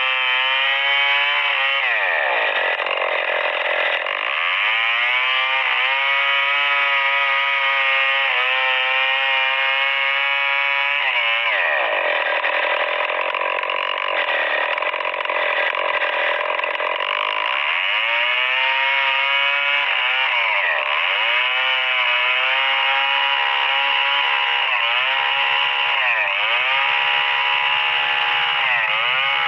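A STIHL 070 two-stroke chainsaw rips lengthwise through a hardwood Merbau log at high revs. Its pitch sags and climbs back several times as the bar bogs down under load in the cut and recovers.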